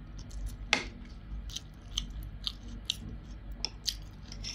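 A person chewing a mouthful of food, with scattered sharp clicks of a metal fork and spoon against a plate; one click a little under a second in is louder than the rest.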